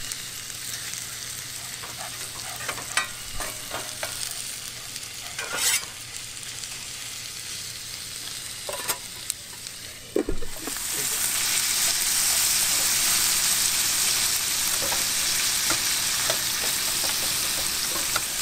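Bacon and diced hash-brown potatoes sizzling as they fry in bacon grease in a skillet, with a spatula clicking and scraping against the pan as they are stirred. There is a knock about ten seconds in, and after it the sizzling is louder and steady.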